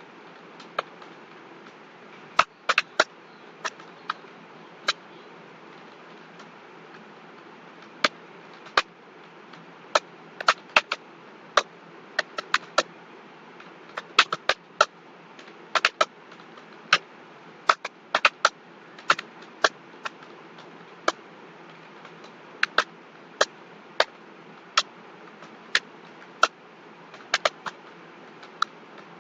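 Computer keyboard being typed on: irregular keystroke clicks, sometimes in quick runs, with a pause of a few seconds near the start, over a steady low background hiss.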